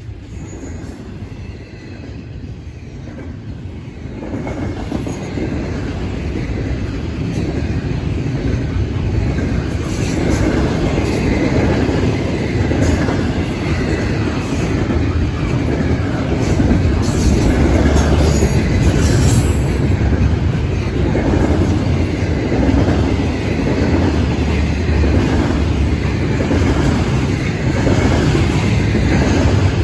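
Double-stack intermodal well cars of a Canadian National freight train rolling past at speed, with a steady rumble and clatter of steel wheels on rail. It grows louder about four seconds in and then holds.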